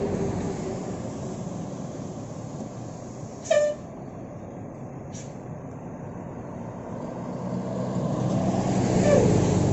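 Road traffic noise with one short horn toot about three and a half seconds in. Then a heavy vehicle draws near and gets louder, loudest near the end.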